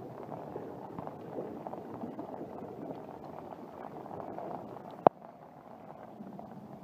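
Steady rain pattering, with one sharp click about five seconds in, after which it is a little quieter.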